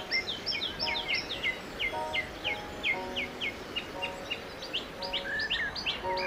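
Songbird singing: a rapid run of high, quick chirps, several a second, with a brief pause about five seconds in.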